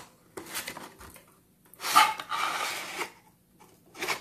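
Cardboard toy box and its plastic-wrapped card insert being handled as the box is opened: a few short scrapes of cardboard flaps and one longer rustle about two seconds in.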